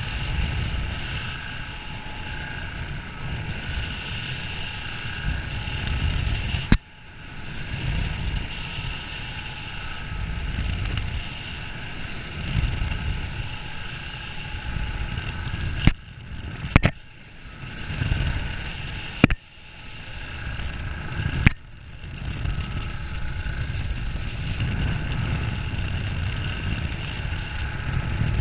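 Wind rumbling over a head-mounted camera's microphone high in a sailing ship's rigging, over a steady hum. About five sharp knocks on the camera, each followed by a sudden brief dip in the sound.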